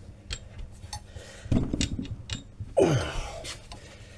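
Tool work on a steel swing-arm bush rusted solid in its housing: sharp metal clicks and knocks, a loud rasping strain about a second and a half in, and a loud groan falling in pitch near three seconds.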